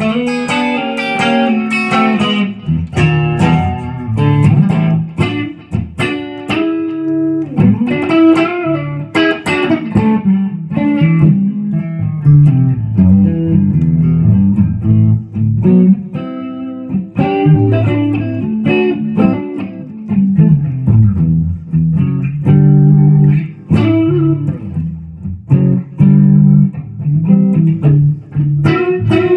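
1996 Epiphone Les Paul Custom electric guitar with Gibson 490 humbucking pickups, played loud: a continuous run of picked riffs, with notes and chords changing quickly and short gaps between phrases.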